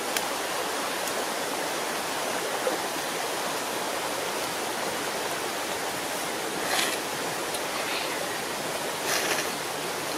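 Steady rushing of flowing water, like a stream, with two short rustles about seven and nine seconds in.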